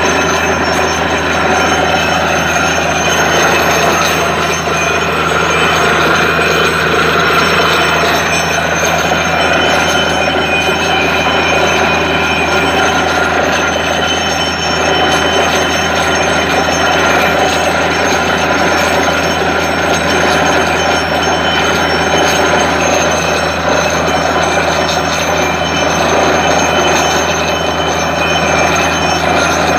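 Truck-mounted borewell drilling rig running while drilling, a loud steady mechanical din with several steady high tones over it and no breaks.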